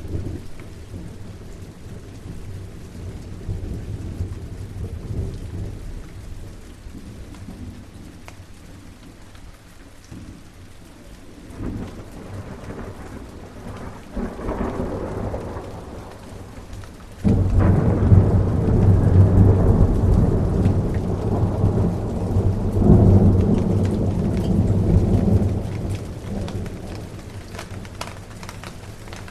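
Steady rain with rolling thunder. A soft low rumble rises early on and again halfway through; then a loud thunderclap breaks suddenly a little past the middle and rolls for about eight seconds, swelling once more before it dies away into the rain.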